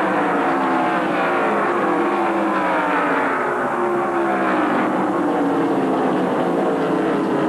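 A pack of NASCAR Winston Cup stock cars running flat out. The notes of their V8 engines overlap, and each one falls in pitch as its car goes by.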